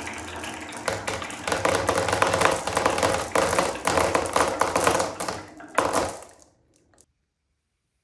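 Marbles rolling and clattering down a wooden marble run of wave-shaped slopes, a dense rattle of clicks that thins out about six seconds in and stops soon after.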